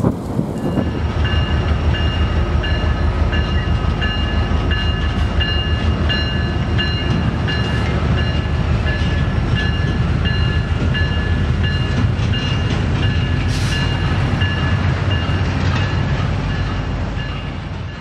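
Freight train passing close by: a steady heavy diesel-locomotive rumble with wheel-on-rail noise and a high ringing tone that repeats about twice a second. It fades out near the end.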